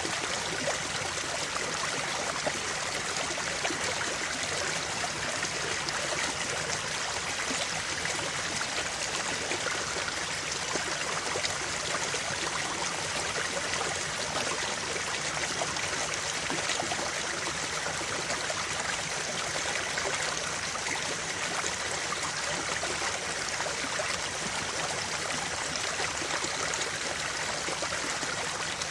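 Creek water flowing steadily over stones, a continuous babbling rush.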